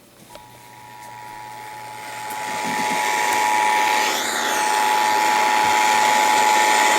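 Emergency alert attention tone: a steady two-tone signal starting a fraction of a second in, over radio static that swells louder over the first few seconds. It announces the severe thunderstorm warning message that follows.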